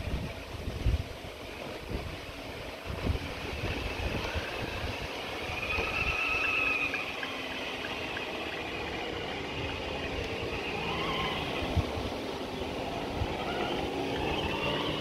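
Electric motor and gears of a CEN Racing F450 RC scale pickup truck towing a boat trailer: a thin whine that rises and falls in pitch as it speeds up and slows down.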